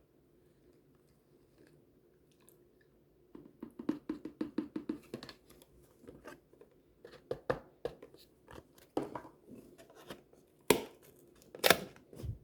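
Convenience-store food and its packaging being handled, crackling and crinkling in bursts of quick clicks, with two sharp, louder snaps near the end.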